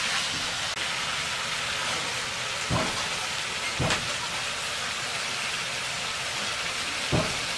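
Duck curry boiling hard in a large wok, a steady bubbling hiss. A metal spatula stirs it and knocks against the pan about three times.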